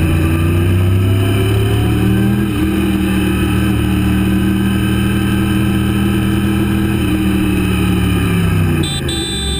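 Sportbike engine running under way, its pitch rising over the first two seconds and then holding steady, then dropping away near the end as the throttle comes off.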